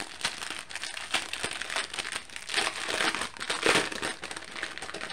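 Thin clear plastic packaging crinkling and rustling in continuous irregular crackles as hands pull a bag of diamond painting drills out of it, loudest around the middle.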